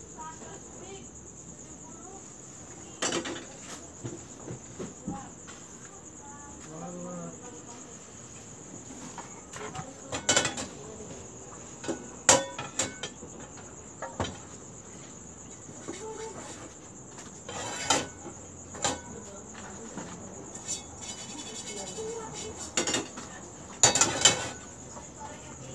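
Small metal frying pans clattering and knocking against a gas stove while thin crepe skins are cooked, in scattered sharp knocks with the loudest near the end. A steady high-pitched whine runs underneath.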